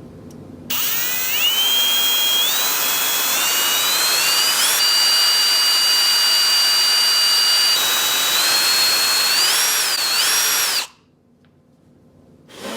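Electric drill running and drilling into an iPhone 7 to make a headphone-jack hole. Its high whine climbs in steps as it speeds up, holds steady, then wavers up and down before cutting off suddenly about eleven seconds in.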